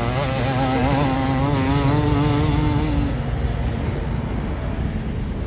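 Motocross dirt bike engines running at racing revs: one engine note is held at a steady pitch for about three seconds, then fades into the general drone of the other bikes.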